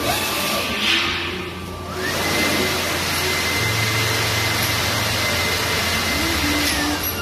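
Vacuum forming machine running through a forming cycle: a steady hiss of air with a machine whine that rises about two seconds in, holds level, and falls away near the end.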